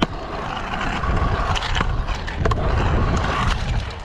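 Stunt scooter's wheels rolling over skate-park concrete: a steady rushing hum with a few sharp clacks from the deck and wheels.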